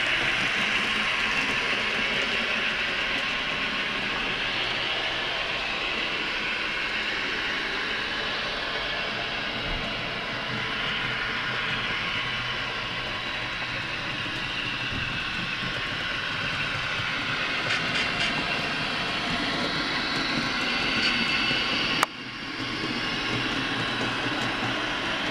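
Athearn N scale Santa Fe FP45 and F45 locomotives' Tsunami sound decoders playing diesel engine sound, mixed with the running noise of the model trains on the track. A sharp click comes about 22 seconds in, after which the sound briefly drops and comes back.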